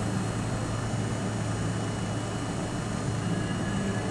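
New York City subway C train, heard from inside the front car, rolling slowly along the platform as it pulls into a station: a steady rumble of the running gear over a constant low hum.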